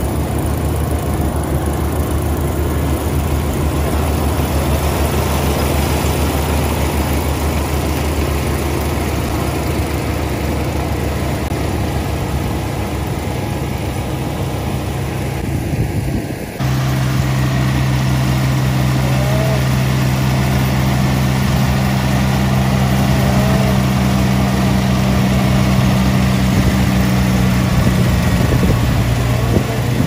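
Yanmar CA300S rice combine harvester running steadily as it harvests, its diesel engine and threshing machinery giving a continuous hum. About halfway through the sound changes abruptly to a louder, steadier hum.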